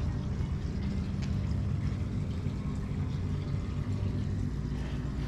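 Low, steady rumble, as of a motor running nearby.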